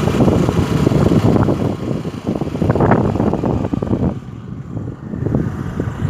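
Wind buffeting the microphone: a loud, gusty rumble that swells and fades every second or so.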